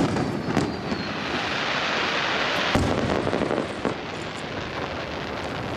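Aerial firework shells bursting: a sharp bang at the start and another just after, a hissing crackle that builds for about two seconds, then another bang near the middle. The booms echo off the surrounding hills.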